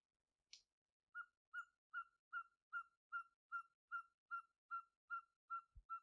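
A night bird's call: an even series of about thirteen short whistled notes at one pitch, about two and a half a second, starting just after a brief hiss.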